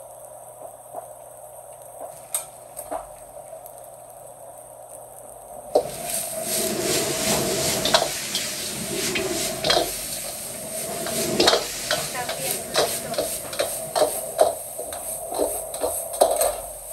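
Stir-frying in a wok: loud sizzling starts suddenly about six seconds in and carries on, with a metal spatula repeatedly scraping and clanking against the pan. Before it, a steady kitchen hum with a few light clicks.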